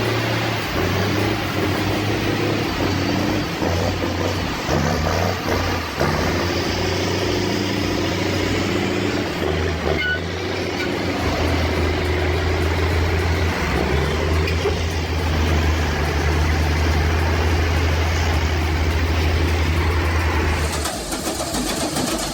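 Heavy diesel engines running hard under load, a steady low hum with mechanical noise over it, as a Mack R600 truck climbs a steep grade with a D5 dozer pulling it. The sound cuts off abruptly near the end.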